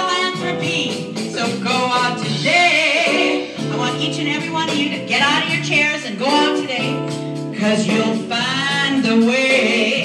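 A woman singing a blues song into a microphone, with instrumental accompaniment underneath.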